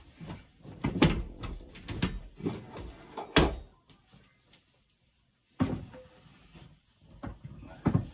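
Irregular knocks and clunks of an oil boiler's expansion vessel and its fittings being handled and worked free of the boiler casing. The loudest knock comes about three and a half seconds in, followed by a short quiet pause and a few more clunks.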